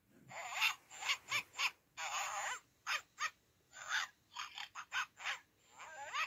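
Oriental kittens meowing in a rapid run of short, harsh calls, with one longer drawn-out meow about two seconds in.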